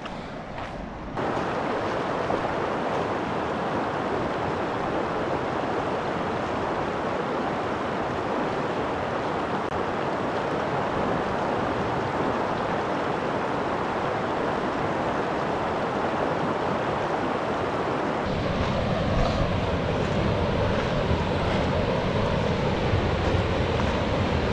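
River water rushing over rock ledges and small rapids, a steady wash of noise. It steps up a little over a second in and turns deeper and fuller for the last several seconds.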